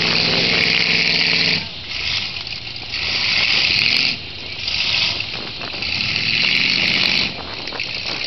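Heavy vehicle engine revving hard in four bursts under load, straining to pull a mired excavator out of the mud. Each burst carries a loud hiss over it, and the engine drops back between bursts.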